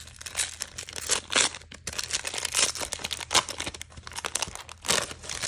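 Gold foil wrapper of a 2022 Topps Inception trading-card pack crinkling and tearing as it is peeled open by hand, an uneven run of sharp crackles.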